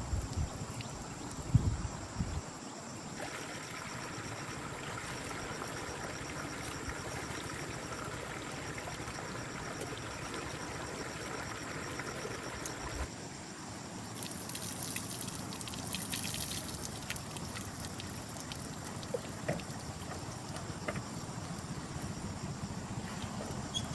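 A few low thumps, then a steady pouring sound that cuts off about halfway through, leaving a quieter outdoor background with scattered small ticks.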